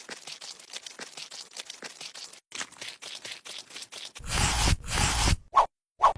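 Small hand-craft work on miniature building materials: rapid light scraping and clicking for about four seconds, then a louder rough scraping noise lasting about a second.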